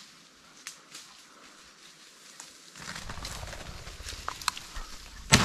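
Scattered light steps and twig snaps through dry brush, then a low rumble comes in about three seconds in, and a single loud shotgun blast goes off just before the end.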